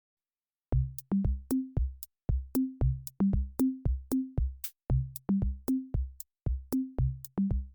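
Electronic background music starting under a second in: a regular drum-machine beat with short low bass notes.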